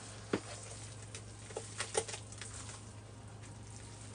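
Hands working a thick, wet powder paste: soft, irregular squishing and patting, with a few sharper squelches about a third of a second in and around two seconds, over a faint steady low hum.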